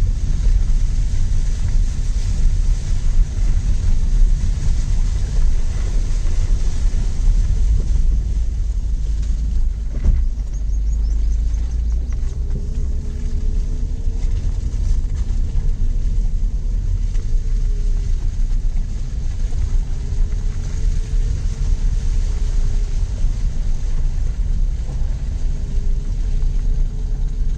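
Steady low rumble inside the cabin of a Tata Tiago hatchback crawling along a rutted, muddy dirt track: tyre, suspension and engine noise. There is a single knock about ten seconds in. From about twelve seconds a faint tone rises and falls slowly a few times.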